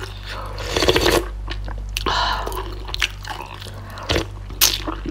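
Close-miked mouth sounds of eating: slurping spicy fish soup off a metal spoon and chewing, in several short wet bursts.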